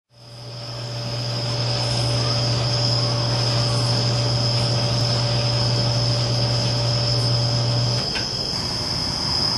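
Crickets trilling steadily at a high pitch, fading in at the start. Under them a low steady hum cuts off about eight seconds in.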